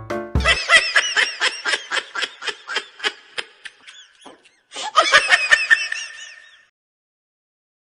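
High-pitched laughter in quick rapid pulses, a first run fading out over about four seconds and a second run starting about five seconds in.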